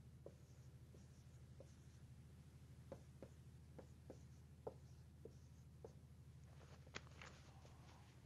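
Dry-erase marker writing on a whiteboard: faint, irregular squeaks and taps of the strokes over a low steady hum. Near the end there are a few sharper clicks and a brief rustle.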